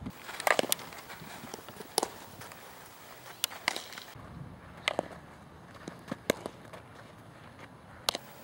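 Softball fielding practice: scattered sharp knocks and pops of a softball being hit and caught in leather gloves, about ten in all, over low outdoor background hiss.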